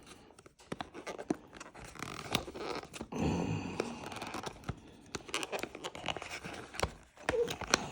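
Cardboard perfume box being worked open by hand: irregular scraping, scratching and tearing with many small clicks and taps.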